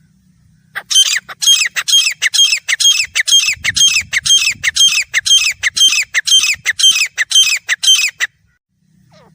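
Grey francolin calling: a long run of loud, harsh, repeated notes, about three to four a second, starting about a second in and stopping about eight seconds in.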